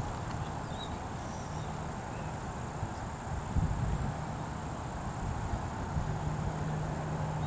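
Outdoor background noise: a steady high-pitched insect drone over a low rumble, with a low hum that settles into a steady tone about six seconds in and a single bump about three and a half seconds in.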